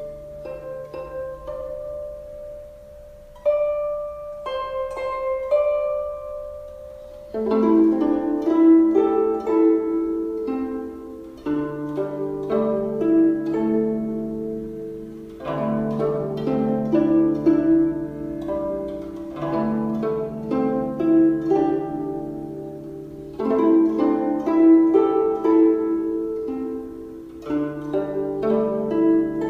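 Soft instrumental music: plucked, harp-like notes over sustained chords, with the bass note changing about every four seconds.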